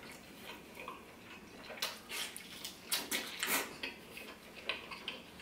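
Metal spoon tapping and scraping in a small handheld bowl while eating, heard as a few short, scattered clicks with quiet gaps between.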